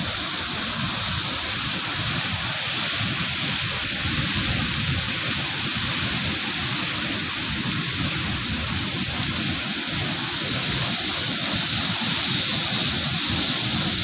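Steady rushing noise of stormy wind and rough sea surf, with a fluctuating low rumble underneath.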